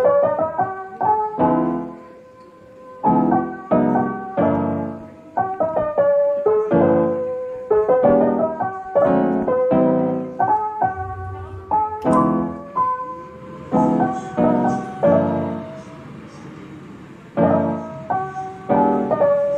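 Background piano music: a gentle melody over chords, each note struck and then fading.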